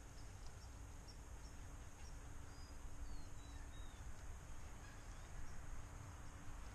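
Faint outdoor background: a steady high insect drone, with a few short bird chirps around the middle, over a low rumble.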